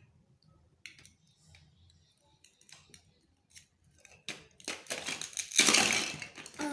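Plastic toy fruit and toy knife being handled and cut apart: scattered light clicks, then busier clicking and knocking with a short rasping scrape about five and a half seconds in.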